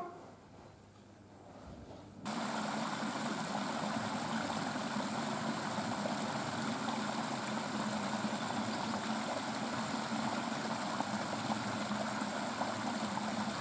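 Quiet room tone, then about two seconds in a sudden cut to the steady rushing of a shallow stream running fast over stones.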